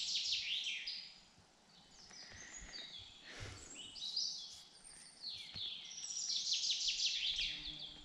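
Woodland songbirds singing: a fast run of falling trilled notes at the start and again near the end, with scattered chirps between.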